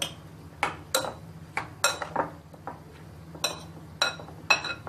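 A metal spoon clinking against a white bowl while stirring yogurt raita: about eleven sharp, irregular clinks, two or three a second, each with a brief ring.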